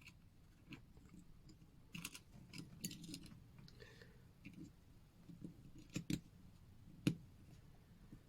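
Faint, irregular small metal clicks and taps of tweezers and tools handling a quartz watch movement as a new battery is fitted. There is a cluster of clicks about two to three seconds in, two sharp clicks near six seconds, and the loudest single click about seven seconds in.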